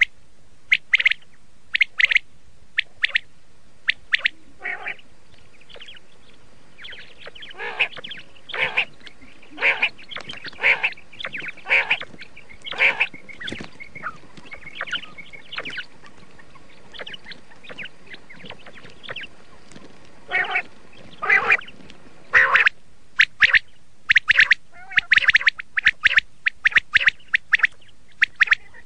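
Quail calling: short, sharp calls repeated in quick clusters, with brief pauses between the groups.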